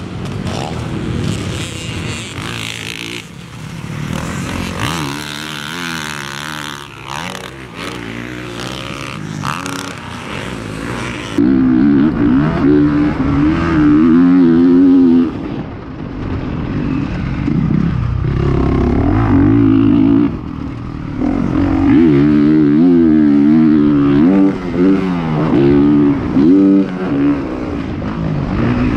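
Honda four-stroke motocross bike engine revving up and down hard as it is ridden around a dirt track. It is heard from trackside at first, then from on board about eleven seconds in, where it is louder and close up, the pitch climbing and dropping repeatedly with each burst of throttle and gear change.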